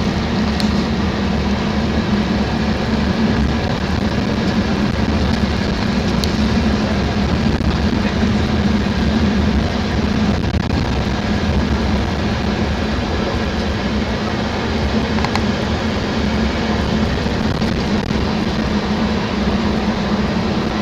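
Tour coach engine and road noise heard from inside the cabin, a steady drone with a constant low hum.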